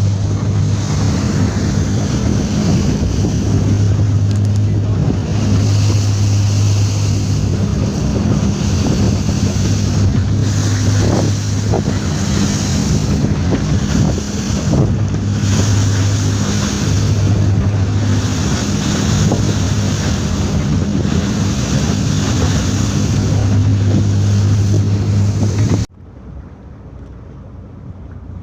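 Boat engine running with a steady low hum, under wind buffeting the microphone and rushing water. The sound cuts off suddenly near the end, leaving a much quieter rumble.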